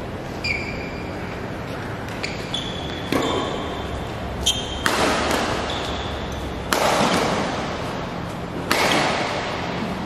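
Badminton rackets hitting a shuttlecock in a rally, sharp hits that echo through a large hall, the three loudest in the second half. Sneakers squeak briefly on the court between the hits.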